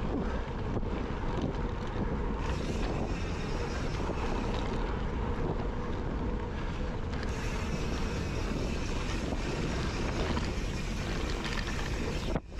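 Steady wind buffeting the microphone of a camera riding along on a mountain bike, mixed with the rumble of the ride over a dirt trail. The sound briefly drops out near the end.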